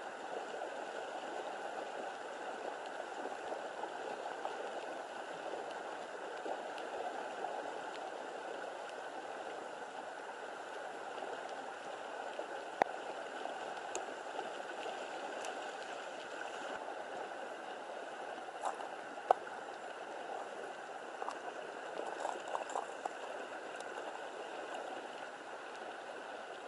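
Steady rush of running water, like a stream flowing. A few sharp clicks and knocks break through it, the two loudest about halfway and about two-thirds of the way through.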